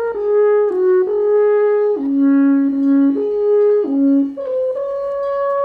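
Alphorn playing a slow melody of held notes that step up and down between a few pitches, rising to a higher long-held note near the end.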